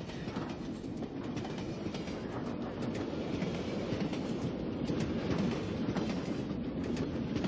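Passenger train running along the track: a steady rumble of wheels and carriage, heard from inside the car.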